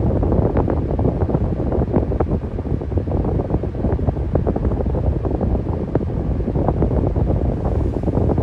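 Electric fan running steadily: a low, even rush of air with faint, irregular ticks.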